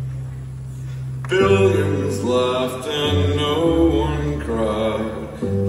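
Live band music: a low held note, then about a second in several voices start singing together in harmony, with cello notes changing underneath.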